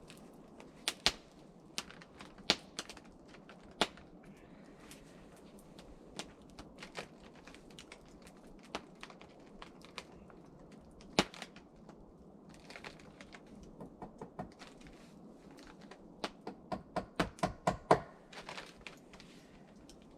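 Sharp tool strikes on wood: scattered single blows, then a quick run of about eight blows near the end.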